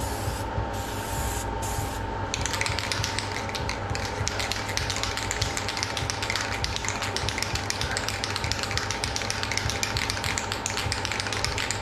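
Aerosol can of dye-penetrant developer spraying in a few short hisses over the first two seconds or so, laying on a light coat. After that comes a fast, steady rattle of the can's mixing ball as the can is shaken between coats.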